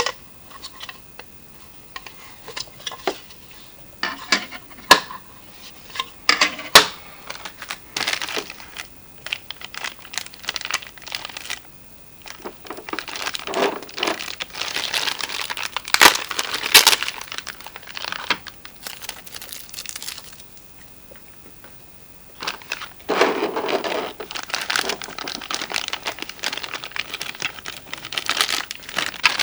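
Toy packaging being unwrapped by hand: plastic and paper crinkling and tearing, with sharp clicks and taps early on. Longer rustling stretches follow, with quiet pauses between.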